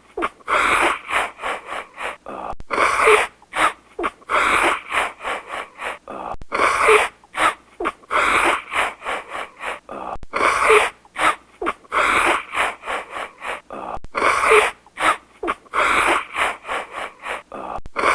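A looped stock sound effect: a run of short noisy, hissing bursts of uneven length. The same sequence repeats about every four seconds.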